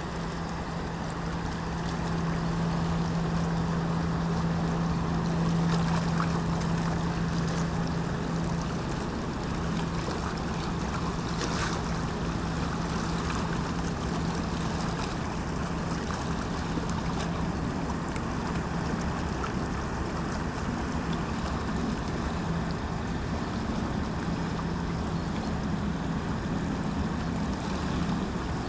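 Engine of a small passenger ferry boat passing on the river, a steady low drone holding one pitch, over a continuous hiss of moving water.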